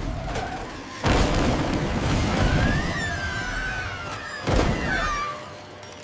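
Cartoon crash sound effects of a bridge giving way. A loud boom about a second in, then a crashing rumble, and a second boom near the end, with a wavering high tone over the rumble.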